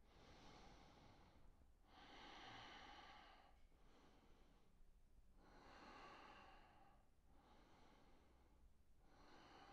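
Faint, slow breathing of a man close to the microphone: a series of long, even breaths, each a soft rush of air lasting a second or two.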